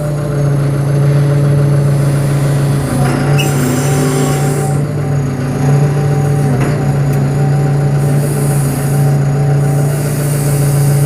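Bobcat B900 backhoe loader's diesel engine running steadily while the backhoe levers are worked, its note shifting slightly a few times as the hydraulic load changes.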